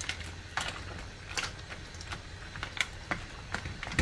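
Yellow plastic slotted ladle stirring a pan of seafood boil, the mussel shells, crab and corn knocking against each other and the metal pan: irregular light clicks and clatters, about two a second, over a low steady hum.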